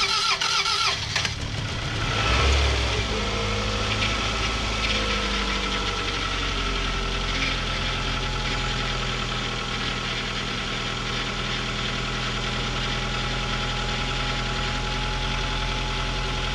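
Starter cranking a 2002 Toyota RAV4's used replacement engine on its first start; it catches about a second in, flares up briefly, then settles into a steady idle. It runs, with oil pressure.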